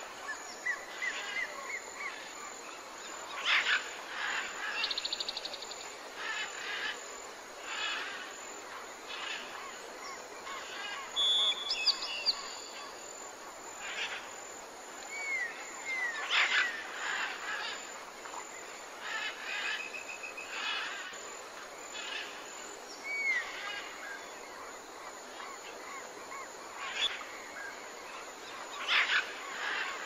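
Mixed bird chorus: many short chirps and calls from several birds, with a few fast trills and some short rising whistles, over a steady soft background of outdoor ambience.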